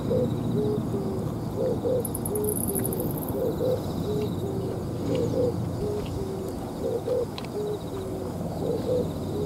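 Oriental turtle dove cooing its repeated phrase of low notes, two higher then two lower, about every two seconds.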